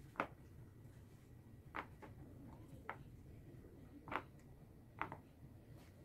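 Silicone Pop It fidget toy bubbles being pressed through one at a time by a child's fingers: five short pops, about a second apart.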